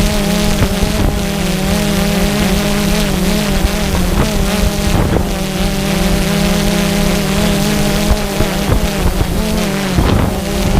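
Drone's motors and propellers humming steadily, a constant low hum with higher tones that waver as the rotor speeds shift.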